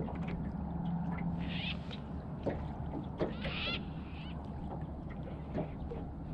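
Water lapping against a boat's hull in small irregular clicks and splashes over a low steady hum, with two brief high chirps about one and a half and three and a half seconds in.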